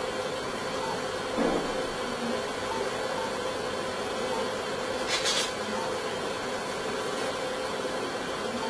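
Steady recording hiss with a faint steady hum. A brief low bump comes about a second and a half in, and a short sharp hiss about five seconds in.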